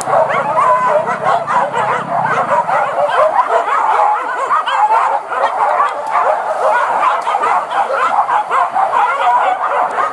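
A pack of boar-hunting dogs yelping and baying, many voices overlapping without a break.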